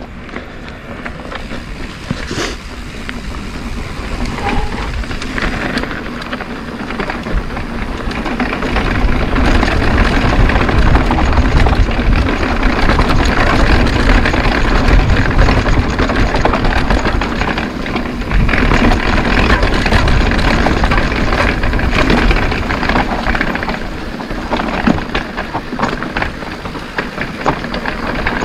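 Wind buffeting the camera's microphone and knobby mountain-bike tyres rolling and rattling over dirt singletrack on a fast descent, growing louder about eight seconds in as speed picks up.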